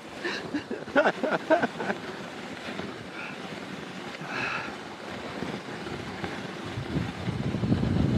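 Wind buffeting the microphone, with a few clicks in the first two seconds; a low rumbling rush builds and grows louder near the end.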